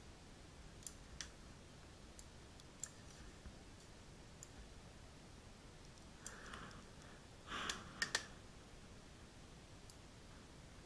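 Faint, scattered clicks of a computer mouse. A brief louder noise comes about eight seconds in.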